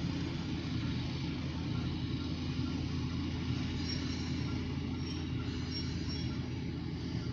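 Diesel locomotive engine running steadily as the light engine moves to pick up the grain hopper.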